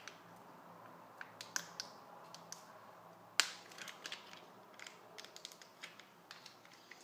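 Small handling noises on a desk: scattered light clicks and taps, with one sharp click about three and a half seconds in.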